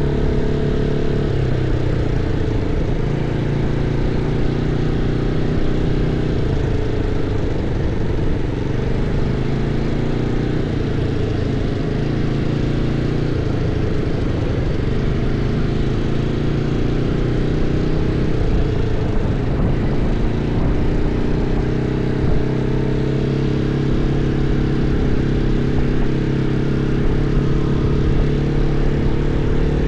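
ATV engine running steadily under way, its drone rising and falling a little in pitch with the throttle, over a rushing noise of wind and the dirt track.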